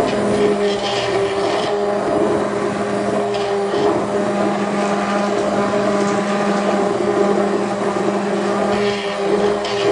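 Mueller immersion blender running in a pot of cooked potatoes and leeks, pureeing them into a thick soup: a loud, steady motor hum.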